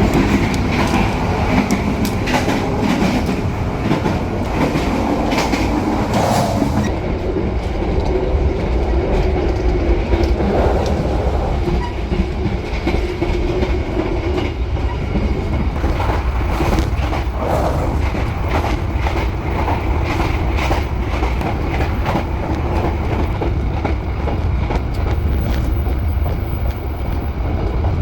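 Passenger train running along the track: a steady low rumble with the clickety-clack of the wheels over rail joints.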